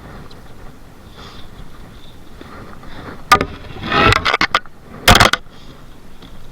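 Knocks and scraping on a boat: one sharp knock, then about a second of loud clattering and scraping, and another loud burst a second later.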